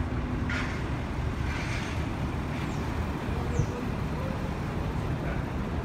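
Road traffic running steadily, a general low rumble of vehicles.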